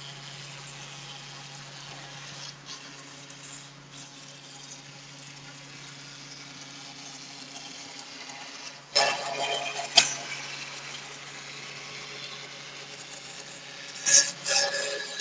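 CNC foam engraving machine running with a steady hum and hiss, with louder clattering about nine seconds in, a sharp click a second later, and two more bursts of clatter near the end.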